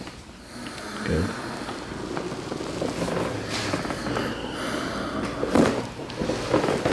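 Chiropractic adjustment: a single sudden loud crack about five and a half seconds in, over steady background noise.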